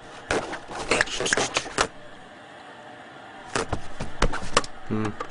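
Two runs of rapid clattering taps and knocks, with a short low pitched sound near the end.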